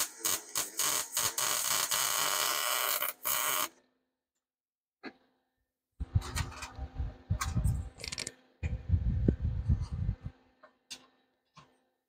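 MIG welding arc crackling steadily for about three and a half seconds, then cutting off. After a short pause come irregular knocks, clinks and low bumps as pliers and spoon pieces are handled on the steel welding table.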